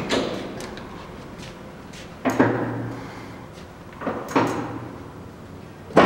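Servo SE1640 engine lathe's spindle drive running down. Then the headstock speed-change levers are shifted with a few sharp clunks, each followed by a short low hum from the drive, and the lathe starts running again at the end.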